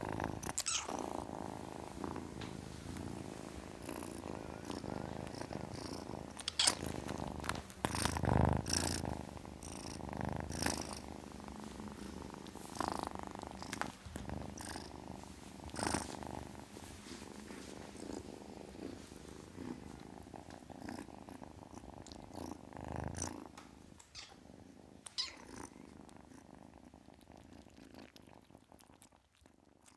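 Kitten purring steadily, broken by a few short rustling, scuffing noises, the loudest about eight seconds in; the purring grows fainter over the last few seconds.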